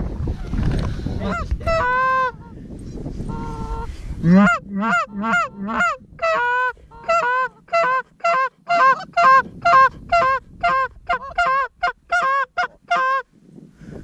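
Canada goose honking: a few drawn-out honks, then a loud, rapid run of honks and clucks at about two a second that stops shortly before the end.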